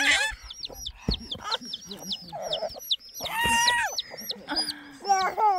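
Baby chicks peeping: a fast, continuous run of short, high chirps that each drop in pitch. A louder, lower call cuts in a little past halfway, and more falling calls come near the end.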